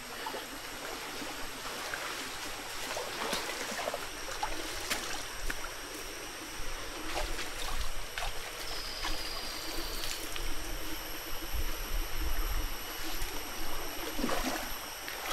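Small hill stream running steadily over rocks, with a few light knocks and clicks scattered through it.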